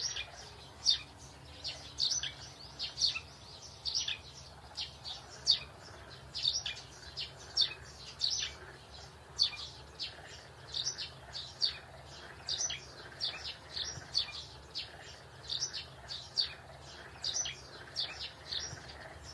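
Small birds chirping: a steady run of short, high chirps, about two a second, over a faint steady hum.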